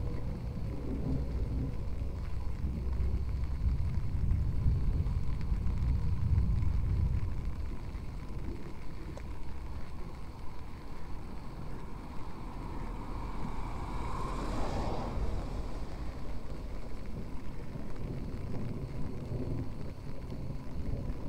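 Rainy street ambience with traffic: a low rumble through the first several seconds, then a passing vehicle whose hiss swells and fades about fourteen seconds in.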